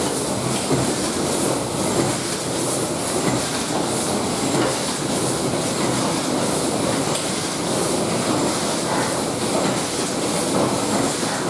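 Automatic packaging machinery running: an OPEM Compacta packaging machine and its conveyors, with a Colibri vacuum conveyor feeding it, give a steady, dense mechanical clatter of rapid small clicks with a hiss over it.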